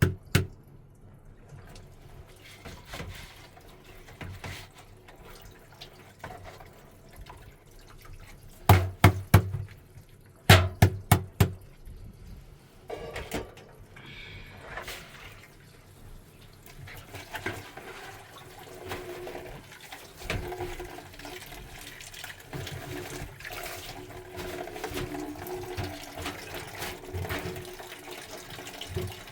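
Water splashing and pouring, with sharp knocks: a pair right at the start and two quick runs of about four loud strikes, around nine and eleven seconds in.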